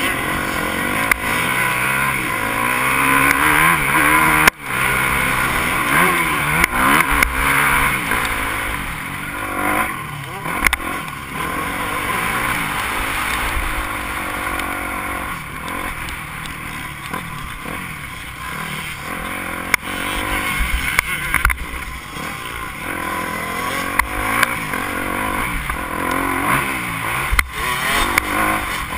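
Motocross bike engine revving up and down again and again as it accelerates and shifts on a dirt track, heard from a helmet-mounted camera. The sound drops out sharply for a moment about four and a half seconds in, with scattered short knocks along the way.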